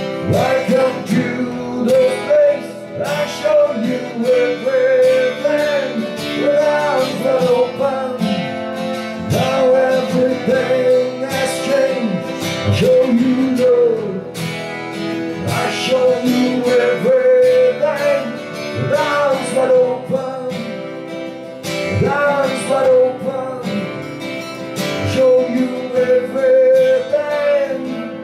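Instrumental break on acoustic guitar and harmonica: the guitar strums steadily while a harmonica played into a hand-held microphone carries a bending melody over it.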